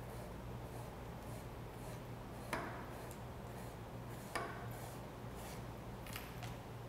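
Hand sanding tool rubbing along the raw edge of a leather bag in short scratchy strokes, smoothing the rough, fuzzy cut edge, with two louder scrapes about two and a half and four and a half seconds in.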